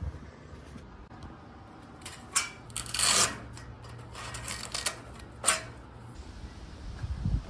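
Hook-and-loop (Velcro) fastener being pulled apart in a few short rasping rips, the longest and loudest about three seconds in. A low steady hum runs under the middle of it.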